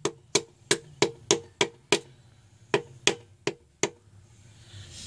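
Wooden hammer handle tapping a piston down through a ring compressor into the cylinder bore of a Ford 2.0L SOHC engine block. It gives light, quick knocks, about three a second, each with a brief ring: seven taps, a short pause, then four more.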